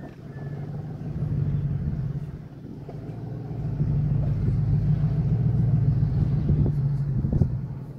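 Car driving on a rough ranch road, heard from inside: a steady low engine and road rumble that dips for a moment and then builds again, with a couple of short knocks from the bumps near the end.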